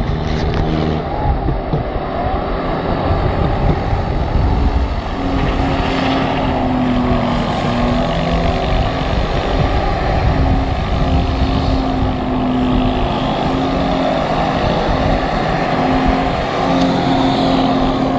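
4x4 SUV engine revving hard and held at high revs as it drifts in circles with wheels spinning on wet mud, the engine pitch dipping and climbing again several times.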